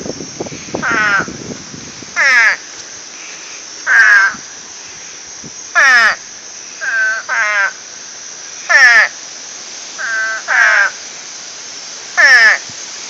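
Pond frogs calling: short, loud calls that drop in pitch, repeated about every one and a half to two seconds, some coming in quick pairs.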